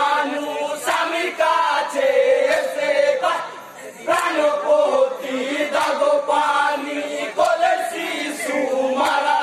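A group of men chanting a Bengali marsiya, a jari song of mourning for Karbala, together in short sung phrases with brief breaks between them.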